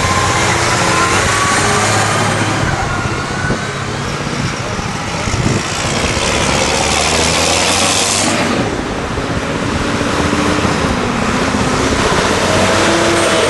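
Tractor engines running steadily, with one vehicle passing close about six to eight seconds in.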